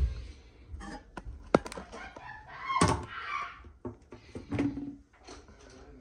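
Porcelain toilet tank lid being lifted off and handled: a low thump at the start, a sharp click about a second and a half in, a squeaky ceramic scrape about three seconds in, and another clunk a little later.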